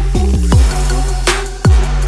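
Electronic dance music with a heavy bass line and deep drum hits that drop in pitch, in a steady beat.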